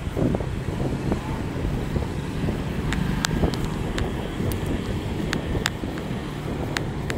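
Wind buffeting a chest-mounted phone's microphone over a steady low road rumble while cycling, with scattered sharp clicks and ticks from about three seconds in.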